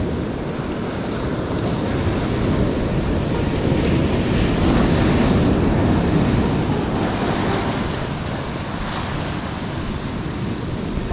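Ocean surf washing in steadily, with wind buffeting the microphone; the wash swells louder about halfway through, then eases.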